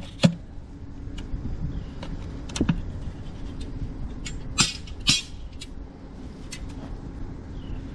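A few sharp knocks and two short scrapes from hand tools at the dig, over a steady low engine hum.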